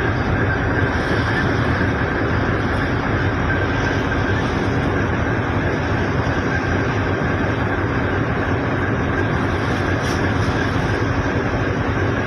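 Boat engine running steadily: an unbroken drone with a continuous hiss over it and a thin steady whine.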